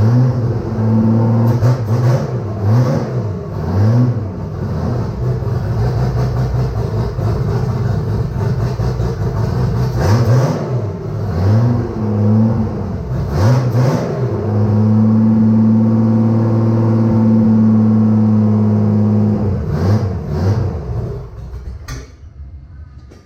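Freshly built Nissan RB30ET turbo straight-six running on its first start-up, blipped up and down repeatedly, then held at a steady higher speed for a few seconds before it drops back and shuts off near the end. It sounds "cranky".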